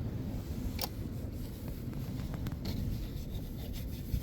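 Small pry bar levering a battery cable terminal off its post: light metal scraping and a few sharp clicks, the loudest about a second in, over a steady low rumble.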